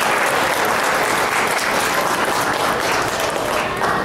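Audience applauding: steady clapping from many hands, easing slightly near the end.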